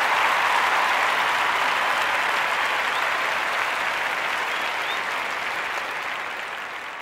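A crowd applauding, a dense even clatter of clapping that fades out over the last couple of seconds.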